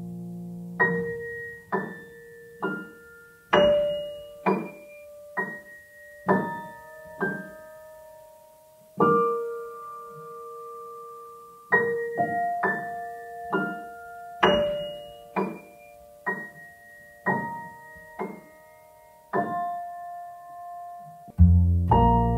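Background piano music: a slow, gentle melody of single struck notes that ring and fade, with lower chords joining near the end.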